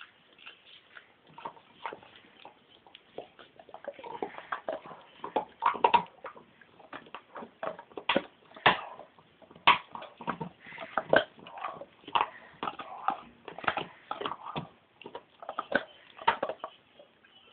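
A Greater Swiss Mountain Dog gnawing on a hand-held elk antler: irregular clicks and scrapes of teeth on antler, sparse at first and busier and louder from about four seconds in.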